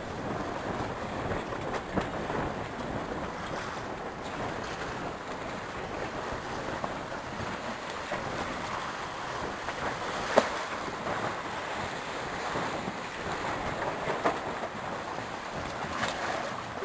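Water rushing along a racing sailboat's hull, with wind buffeting the microphone, steady throughout. Two sharp knocks stand out, about two seconds in and about ten seconds in.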